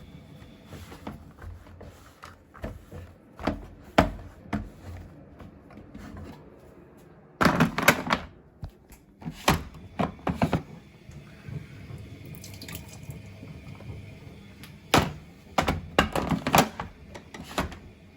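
Water splashing and running, with scattered knocks and clatter. These come in bunches: a loud cluster about seven seconds in, more around ten seconds, and another cluster near the end.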